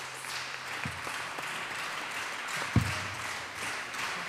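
Audience applauding. A single dull thump comes about two-thirds of the way through.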